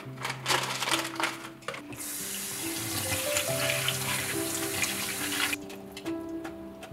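Tap water running onto shelled edamame in a wire-mesh strainer: a steady hiss that starts about two seconds in and cuts off sharply about three and a half seconds later. Before it comes a run of light clicks and rattles. Background music plays throughout.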